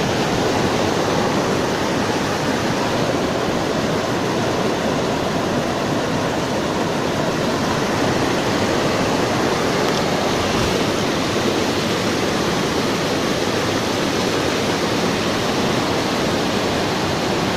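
A muddy river in flood rushing and churning over rocks: a steady, loud, unbroken roar of water.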